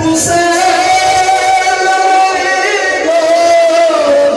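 Men chanting a slow devotional mourning lament in long held notes that slide up and down, with a brief thump right at the start.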